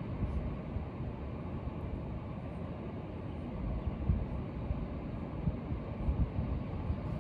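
Wind buffeting the microphone: a steady low rumble with irregular gusts and a few sharper knocks.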